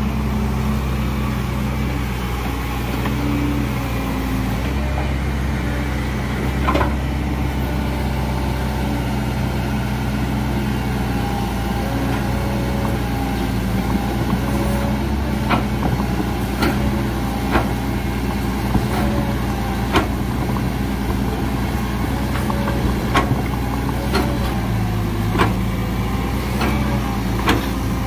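Sumitomo SH120 A1 excavator's diesel engine running steadily, with short sharp clicks or knocks about once a second in the second half.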